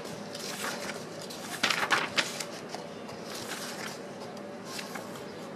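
Pages of a paper service manual being turned and handled: a few short rustles and soft clicks, loudest about two seconds in.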